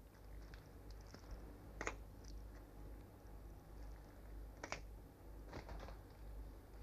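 Faint sharp clicks of end-cutting nippers snipping through a red fox's toes at the outermost toe joint, three or four snips spread over several seconds, over a low steady hum.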